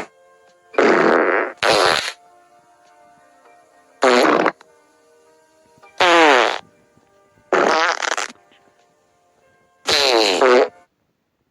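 Cartoon fart sound effects: six loud blasts a second or two apart, several sliding down in pitch, over faint background music. They stop near the end.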